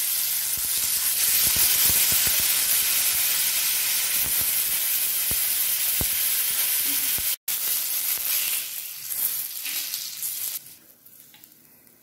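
Marinated catla fish steaks frying in hot mustard oil on an iron tawa: a steady sizzle with scattered crackling spatters. The sizzling stops about ten and a half seconds in.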